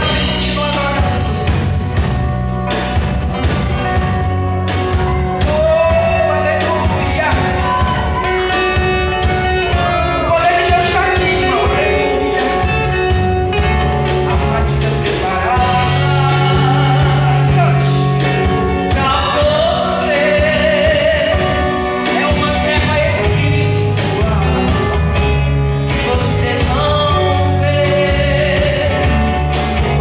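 Live worship band playing: a woman sings a melody into a microphone over keyboard, electric and acoustic guitars, bass guitar and a drum kit, loud and steady throughout.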